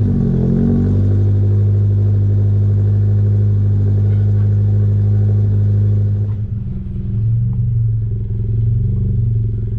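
2022 Subaru BRZ's 2.4-litre flat-four idling just after a cold start, through a newly fitted Remark double-wall axle-back exhaust. A loud, steady low exhaust note that dips slightly about six seconds in and then evens out.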